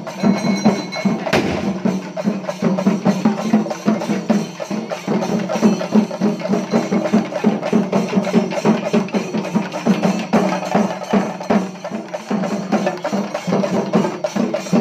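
A group of barrel drums, their heads beaten with sticks, playing a fast, dense rhythm together.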